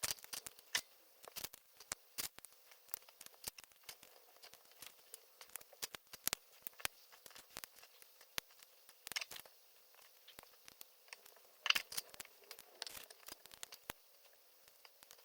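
Small plastic LEGO pieces being handled and clicked together, a quick scatter of light clicks and taps. Brief plastic crinkling comes twice, near the middle and again a few seconds later.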